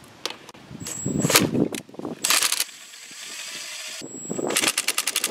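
Cordless impact driver with a hex nut-driver bit driving screws to fasten a foundation vent grille to the wall: short bursts of motor whir, then rapid even clicking hammering near the end as a screw tightens.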